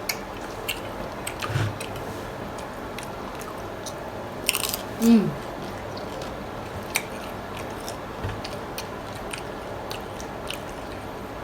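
Close-miked eating of crunchy tacos: biting and chewing with scattered small crunches and clicks. A short hum from a voice, falling in pitch, comes about five seconds in.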